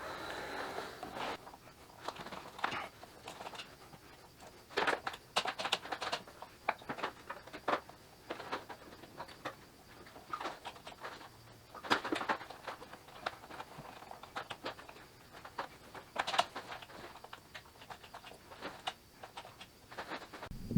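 Hands working a heated grip onto a motorcycle handlebar over fresh super glue: scattered irregular clicks, taps and rubbing.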